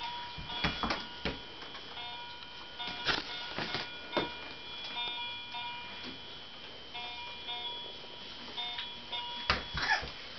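Battery-powered toy piano playing a tinny electronic tune of plain beeping notes that switch on and off, with scattered sharp knocks and clicks of plastic toys being handled, the loudest knocks near the end.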